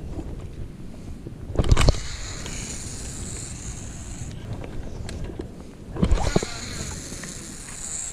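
Wind and handling noise on a fishing boat: two heavy thumps about four and a half seconds apart, each followed by a few seconds of high hiss.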